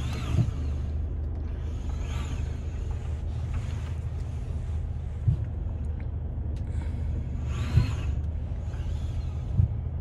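Interior cabin sound of a Mercedes V-Class diesel van pulling away at low speed: a steady low engine and road hum, with four short knocks spread across it.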